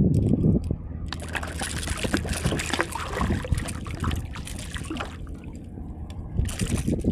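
A small hooked fish splashing and thrashing at the water's surface beside a kayak as it is hand-lined up to the side, in crackly bursts of splashes from about a second in, with another burst near the end. A low rumble comes first.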